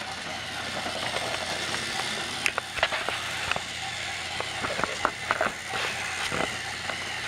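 TrackMaster motorized toy train engine running on plastic track: a steady electric-motor whir, with irregular sharp clicks and rattles from the wheels and truck from about two seconds in.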